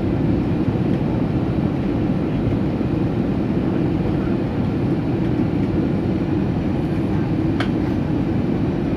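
Steady, even noise of an Airbus A320 airliner's jet engines and airflow, with one brief click about seven and a half seconds in.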